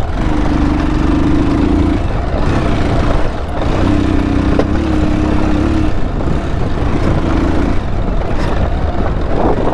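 Bajaj Pulsar 220 motorcycle's single-cylinder engine running as the bike rolls down a rough dirt track. There is a steady low rumble and rushing noise throughout, and the engine's hum stands out in a few stretches.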